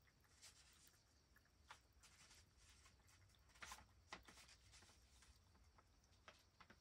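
Near silence with faint, soft, irregular clicks: a cat lapping water from its bowl.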